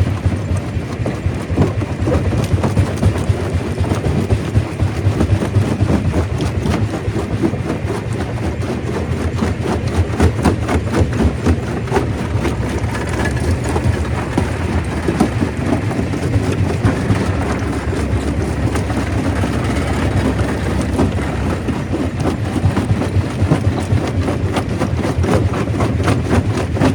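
Stone crusher machine running and breaking rock: a steady low mechanical rumble under dense, continuous cracking and clattering of stone.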